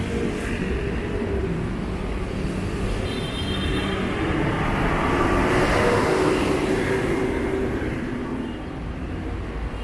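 City street traffic. A vehicle passes close by, its sound swelling and then dropping in pitch about six seconds in.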